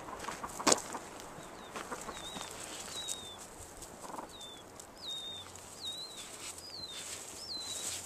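An animal giving short, high chirps over and over, each with a quick dip in pitch, about one or two a second. A sharp click comes just under a second in, the loudest sound here.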